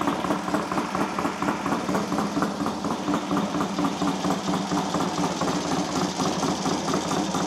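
Triton's Triumph parallel-twin engine idling steadily with an even pulse. The mechanic puts the uneven running down to carburettors that still need setting up.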